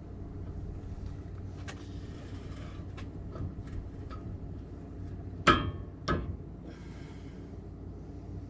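Metal tools and parts being handled during hub work on a truck's front axle: scattered light clicks, then two sharp metallic clanks about half a second apart, the first the loudest, over a steady low hum.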